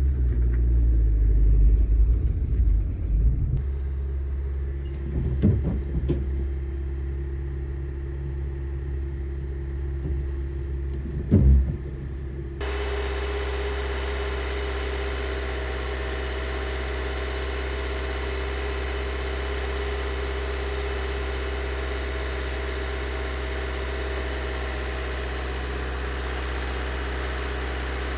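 Car engine running with a low rumble and two short knocks. About halfway through, the sound switches abruptly to a steady, even engine hum with a constant whine above it.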